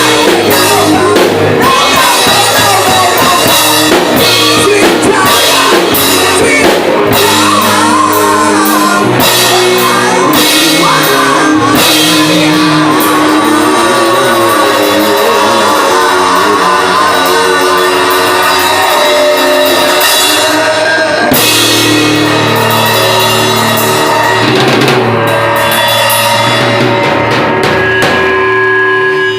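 A live rock band playing at full volume, with a drum kit, guitars and singing.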